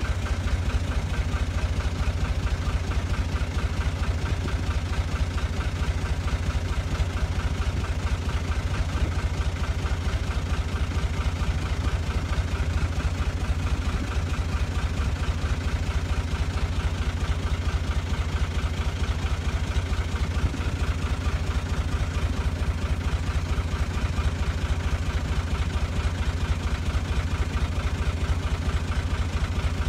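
Diesel engines of a backhoe loader and a farm tractor running steadily, a low, even chugging with no change in speed.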